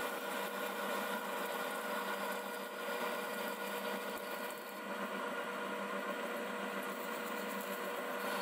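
Metal lathe running in reverse while an upside-down parting blade is fed steadily into the work to part it off: a steady machine hum with several held tones over a hiss.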